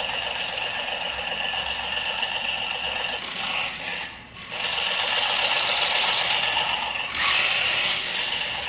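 Mahindra OJA 3140 remote-control toy tractor running, a steady tinny mechanical whirring and rattling that grows louder about three seconds in and dips briefly near the middle.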